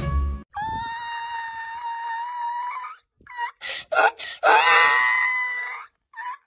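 A donkey braying: one long, high held note, then after a short break a run of choppy, rasping notes that bend in pitch.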